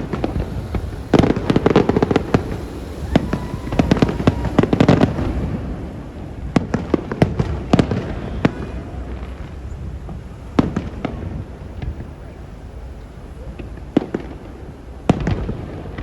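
Fireworks display bursting: a dense run of bangs and crackles over the first few seconds, then scattered single bangs with gaps between them.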